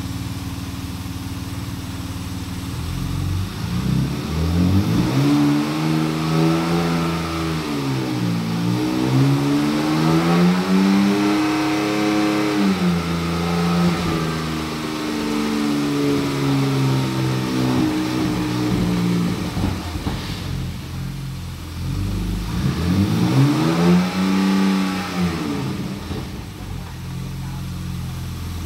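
2015 Porsche Macan Turbo's 3.6-litre twin-turbo V6 running on a drivetrain test, with the front wheel turning. It idles steadily, is revved up and down in several long swells, holds steadier, revs once more, and settles back to idle near the end.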